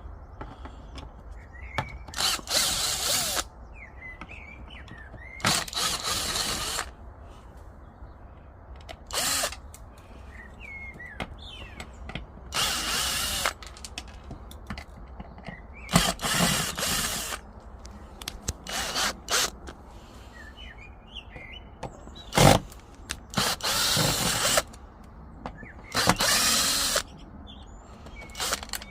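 Power drill-driver backing out screws, run in short bursts of about a second, again and again, with pauses between.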